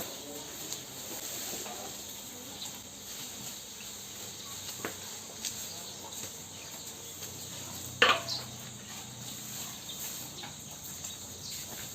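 A Jersey cow eating Napier grass: scattered crunching clicks as the tough stalks are bitten and chewed, with one sharp snap about eight seconds in, over a steady chorus of insects.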